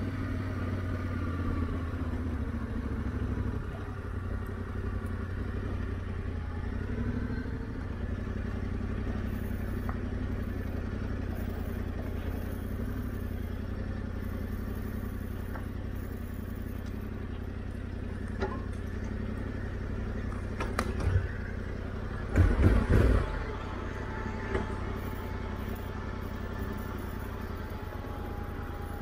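Yamaha Ténéré 700's parallel-twin engine running steadily, with a few loud knocks and clatter about two-thirds of the way in.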